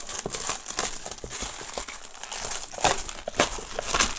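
Black plastic bag wrapping being pulled off a cardboard box and crumpled, crinkling irregularly with a few louder crackles.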